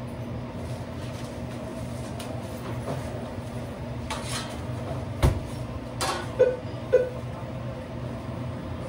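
Steady hum of kitchen equipment, with a loud metal clank from a tray at the oven about five seconds in, then two short ringing knocks.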